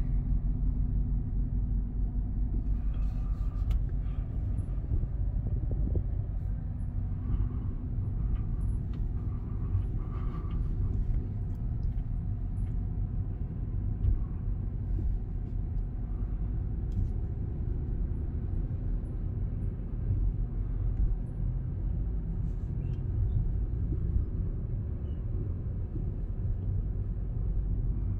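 Steady low rumble of a car driving slowly, its engine and road noise heard from inside the cabin.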